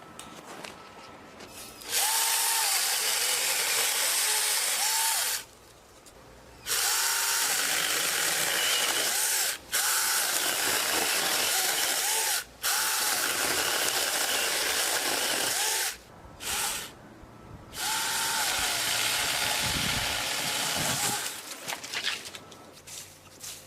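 Cordless electric mini chainsaw running in several long bursts with short pauses between, its motor whine sagging and recovering again and again as the chain cuts wood.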